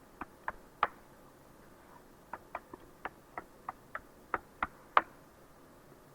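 Short, sharp clicks from a computer's keys or buttons as someone works at a PC: three in the first second, then a run of about ten at roughly three a second, the last the loudest.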